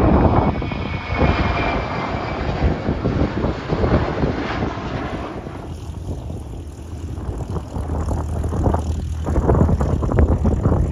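Airplane engine noise at an airport, with a faint high whine in the first few seconds. Wind buffets the microphone.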